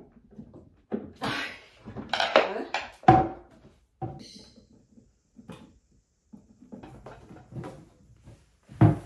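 Knocks, scrapes and rustling as a white flat-pack cabinet is handled during assembly, with one loud thunk about three seconds in.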